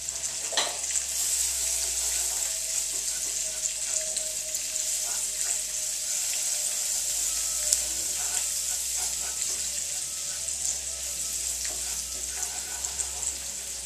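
Butter-coated breadcrumbs sizzling steadily in a skillet over high heat while being stirred with a wooden spoon, with faint scrapes and taps of the spoon through the hiss.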